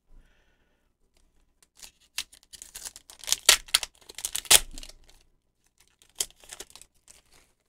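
Foil Pokémon booster pack wrapper crinkling and being torn open by hand, in two bursts of crackly tearing, the longer one first and a shorter one near the end.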